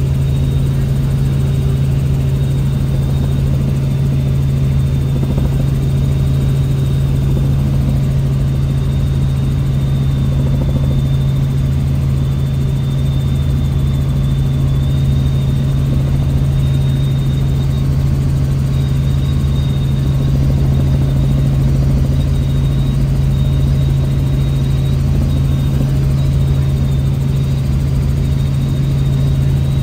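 Helicopter in steady cruising flight, heard from inside the cabin: a loud, unchanging low drone of rotor and engine with a thin high whine over it.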